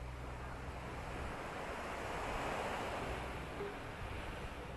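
Sea waves breaking on the beach below: the surf swells to a peak about two and a half seconds in, then falls back.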